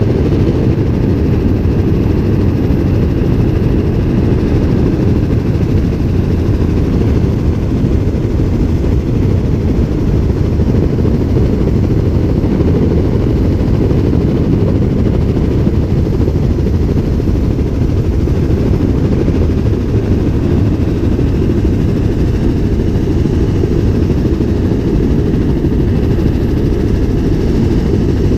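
Helicopter in level flight heard from inside the cabin: a steady, loud, low-pitched rotor and engine drone that does not change.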